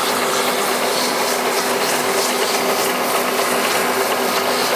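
Steady hissing spray over a steady machine hum: the dirty electric motor of a winch that had been under water is being spray-cleaned.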